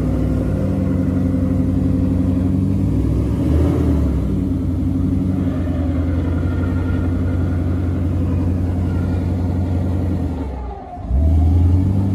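Jeep Grand Cherokee engine running under load at steady raised revs as the stuck car works its way through deep mud. The revs drop off briefly about eleven seconds in, then pick straight back up.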